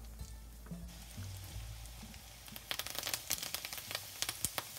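Garlic cloves frying in hot oil with a steady sizzle, then loud crackling and spitting from about two and a half seconds in as fresh curry leaves hit the oil.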